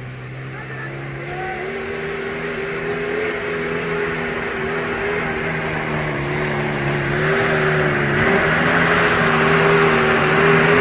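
Off-road vehicle's engine running under steady throttle, its pitch stepping up slightly early on and then holding with small wobbles. It grows steadily louder, with a rising hiss building over the second half.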